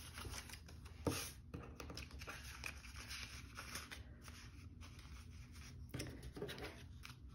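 Faint rustling of paper banknotes and clear plastic binder envelopes being handled, with a soft tap about a second in and another near six seconds.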